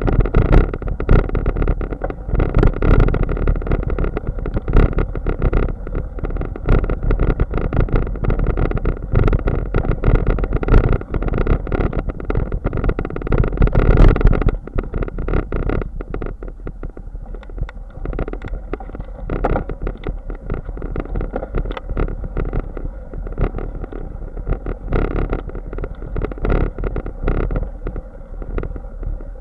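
Bicycle rolling over a bumpy grass track: a steady rumble of wind and motion on the microphone with many small rattles and knocks from the bike over the uneven ground, easing to a quieter rumble about halfway through.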